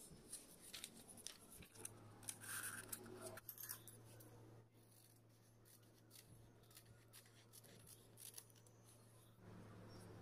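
Stiff black paper rustling and crinkling as it is rolled into a cone, then scissors snipping through it in short clicks. A low steady hum runs underneath from about two seconds in.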